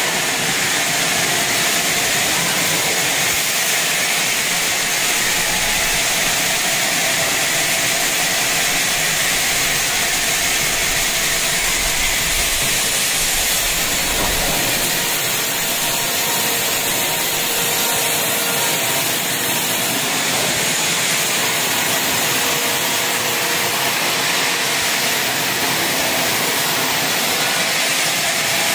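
Steady din of sawmill machinery running in a timber mill hall: saws and their drives going without a break, heaviest in the high, hissy range.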